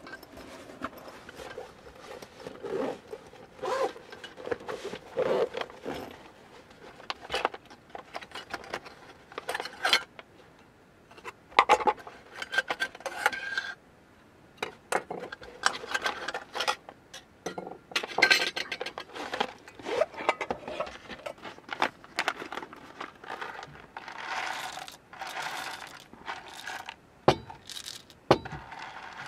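Small metal utensils clinking and scraping as they are taken out of an insulated pouch, with rustling handling throughout. Then, about 24 seconds in, coffee beans are poured from a paper bag into a stainless hand coffee grinder, giving a denser run of rustling and trickling for a few seconds.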